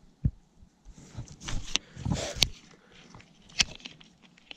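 Handling noise from a spinning rod and reel held close to the microphone: sharp clicks and knocks, with rustling about a second in.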